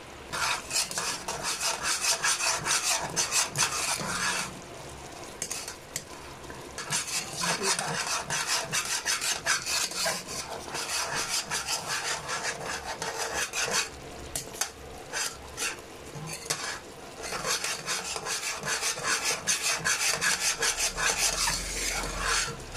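A utensil stirring and scraping around a pot of sauce, in quick repeated strokes with a few short pauses. The sauce is being thickened with a cornstarch slurry and is stirred constantly until it thickens.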